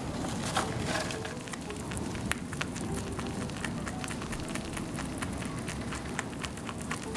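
Typhoon rain and wind: a steady rushing noise with many small, irregular pattering clicks.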